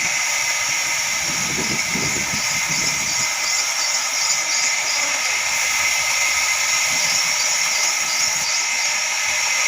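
Heavy-duty horizontal band sawmill running, a steady high hiss with a machine drone underneath.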